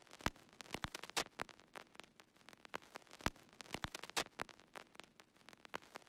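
Static crackle: irregular sharp clicks and pops, several a second, over a faint hiss.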